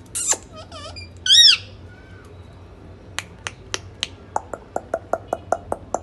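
Indian ringneck parakeet giving a few short squawks and chirps, then a run of sharp snapping clicks that speeds up from about three to about five a second.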